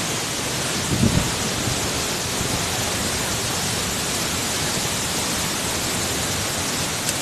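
Waterfall rushing steadily, an even hiss-like roar, with a brief low thump about a second in.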